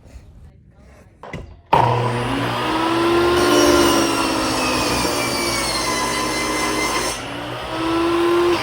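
A motor-driven power tool or small engine running steadily at high speed, starting suddenly about two seconds in, its pitch wavering slightly as if under changing load.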